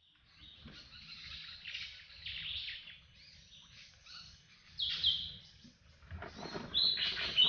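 Small birds chirping and calling repeatedly, with a short steady whistle near the end, over low rustling and handling noise. Two louder noises break in, about five seconds in and again around six to seven seconds.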